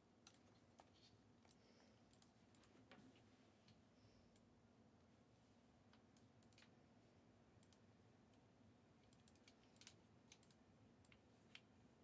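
Near silence: faint room tone with a few scattered, faint clicks, a little busier near the end.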